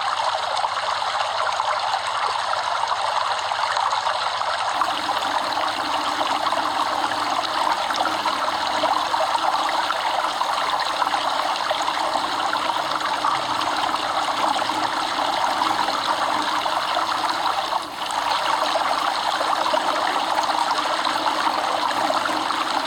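Stream water running and trickling steadily, with a brief dip in level about eighteen seconds in.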